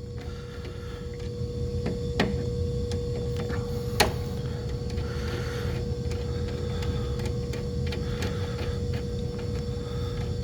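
Steady hum of running compressor-rack machinery with a constant mid-pitched tone, broken by a few sharp clicks of tools at the contactor terminals, the loudest about four seconds in.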